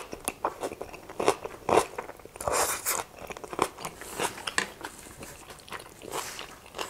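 Close-miked eating sounds: noodles slurped in and chewed, with repeated wet mouth clicks and smacks and a few louder slurping bursts.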